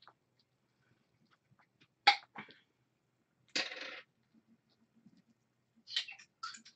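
A few short, sharp sneeze-like bursts: the loudest about two seconds in, a longer one a second and a half later, and two quick ones near the end.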